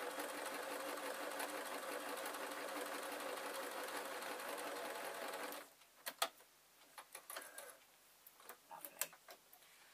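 Singer electric sewing machine running steadily on a straight stitch through black sock fabric, then stopping abruptly about five and a half seconds in. A few light clicks and handling noises follow as the piece is taken out of the machine.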